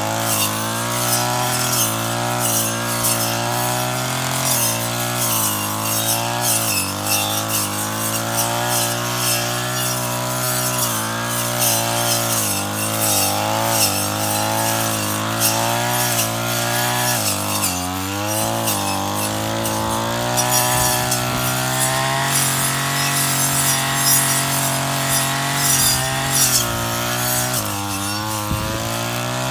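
Brush cutter's small engine running at high revs while cutting tall grass, its pitch wavering with the throttle, over the hiss of the cutting head through the grass. The revs drop and climb back about two-thirds through and again near the end.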